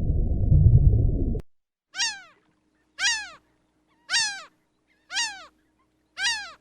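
A low rumble cuts off abruptly about a second and a half in, then a cat meows five times, about a second apart: short, alike calls, each falling in pitch.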